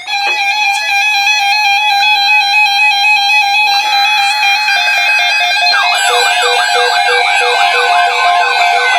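Several NOAA weather radio receivers sounding their alert alarms at once for a severe thunderstorm watch: overlapping steady and warbling electronic tones. About six seconds in, a repeating rising sweep and a pulsing beep join in.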